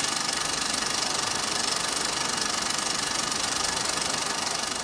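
Mamod Minor 2 toy steam engine, with its single oscillating cylinder, running steadily in full steam: a fast, even chuffing with steam hiss as the brass flywheel spins.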